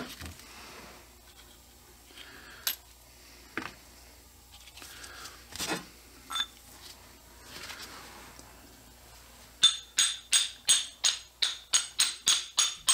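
Metal brake wheel cylinder parts being handled on a workbench: scattered light clicks and clinks, then, starting near the end, a quick run of about a dozen sharp metallic taps with a bright ring, three or four a second.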